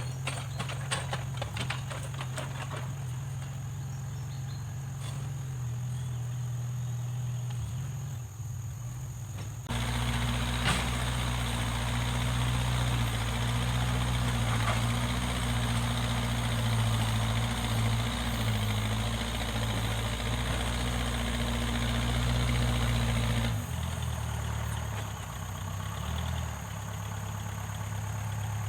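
Backhoe loader's diesel engine running at a steady idle, with quick rattling clicks for the first few seconds. About ten seconds in it gets louder and fuller for about fourteen seconds, then settles back to idle.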